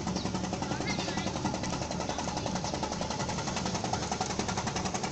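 Stainless-steel eggplant slicing machine running and cutting eggplant into round slices, a steady, fast, even rattle over a motor hum.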